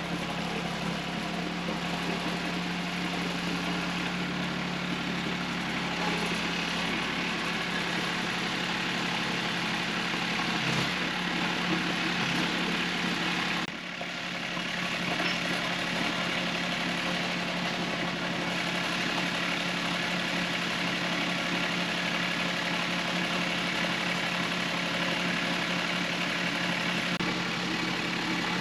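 Tractor engine running steadily at idle, with a brief dip in level about halfway through.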